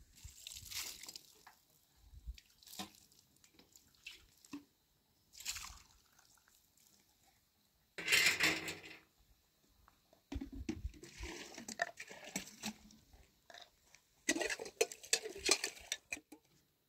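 A metal tray being washed by hand: water splashing and dripping, with irregular scrapes and clinks of the tray. About eight seconds in the sound changes abruptly to a louder burst of noise, followed by irregular rustles and knocks.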